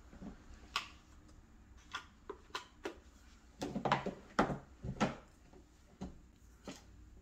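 Handling sounds from an iPhone and its cardboard box on a table: a scattered series of light clicks and knocks, busiest about four to five seconds in.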